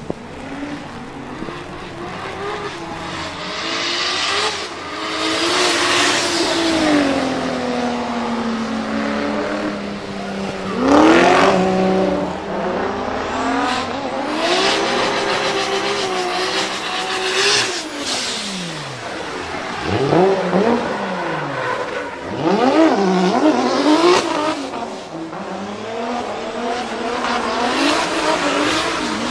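Single-turbo 2JZ straight-six in a Toyota GT86 drift car, revving hard and dropping off again and again as the car slides through the corners, its pitch rising and falling in repeated sweeps.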